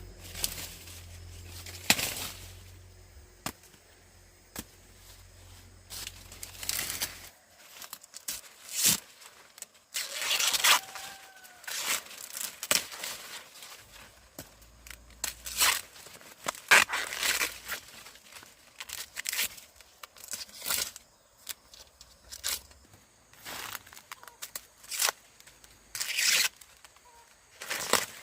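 Dry corn leaves and husks tearing and crackling in irregular bursts, one every second or so, as corn is picked or handled by hand.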